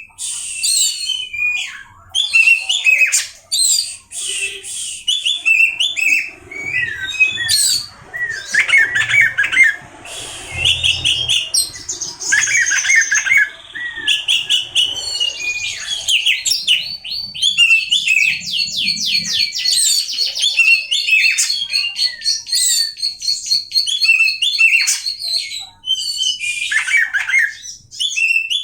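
Oriental magpie-robin (kacer) singing a long, varied song of whistled phrases and chattering notes, with a fast trill over a held high note in the second half.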